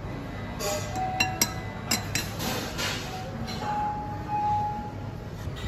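A ramen spoon and chopsticks clinking against a ceramic ramen bowl: several sharp clinks in the first two seconds, over a steady low room noise.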